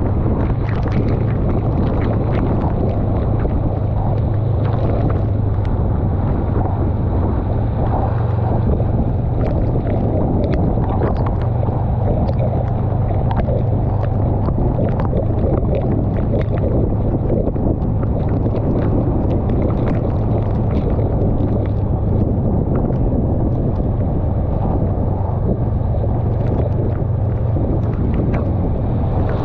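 Honda Rebel 500's parallel-twin engine running at a steady cruise, its low hum under heavy wind noise on the microphone, with rain drops ticking on the camera.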